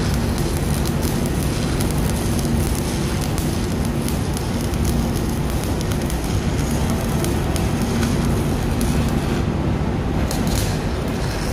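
Arc (stick) welding crackling as a bead is laid inside a worn valve seat of a diesel cylinder head, welding it so that it can be removed. The crackle breaks off briefly near the end. A steady low machinery hum runs underneath.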